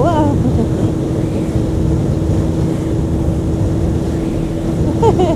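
Honda CB600F Hornet's inline-four engine running at a steady cruise, under a heavy rush of wind noise on a helmet-mounted camera while riding. A short gliding tone comes right at the start and again near the end.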